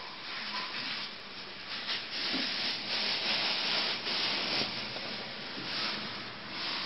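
A rough rubbing, scraping noise that comes in uneven surges and is loudest through the middle.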